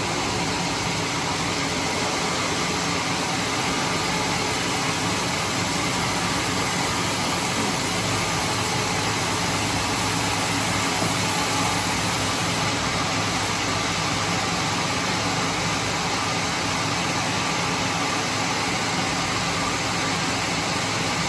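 Portable band sawmill running steadily: an even engine hum under a constant broad hiss, with no pauses or changes.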